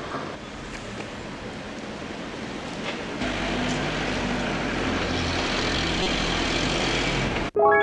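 Street traffic noise: the engine and tyre sound of a vehicle growing louder, then cutting off abruptly near the end.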